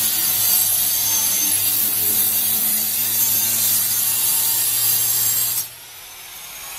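Steady rasping, scraping noise of a tool or abrasive working along the seam of an EPS sandwich wall panel, with a low hum beneath it; it stops abruptly about five and a half seconds in.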